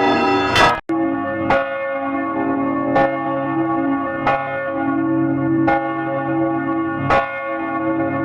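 Church bell tolling: single strokes about every second and a half, each with a long ringing hum of overtones carrying on between strokes. Near the start the sound cuts off sharply for an instant and a second bell recording begins.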